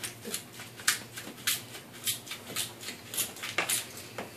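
Hand-twisted spice grinder grinding seasoning, a string of short scratchy grinding strokes at about two a second.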